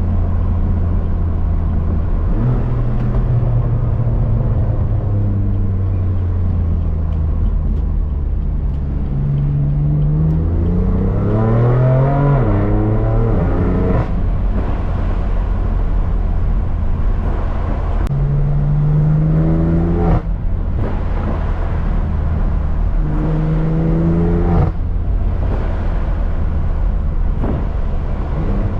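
2018 BMW M3 CS twin-turbo inline-six through an AWE SwitchPath exhaust. It drones steadily while cruising, then is accelerated hard three times, about a third in, past halfway and near the end, with the revs climbing and each run cut off sharply at a gear change, with a brief crack.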